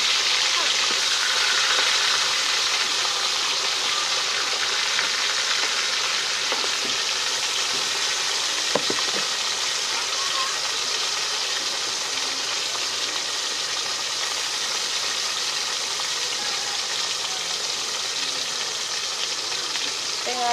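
Pieces of sea fish frying in hot oil in a steel wok, a steady sizzle that eases slightly over time, with one brief knock near the middle.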